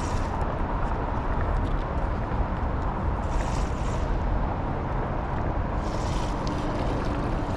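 Steady rushing of river water, with wind rumbling on the microphone and a few brief bursts of higher hiss.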